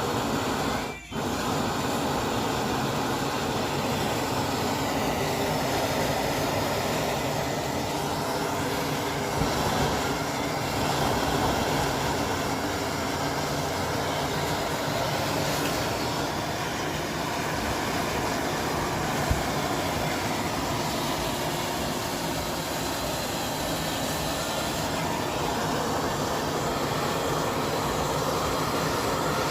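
High-pressure gas stove burners running at full flame, a steady loud roar of gas and air, with a brief dip about a second in.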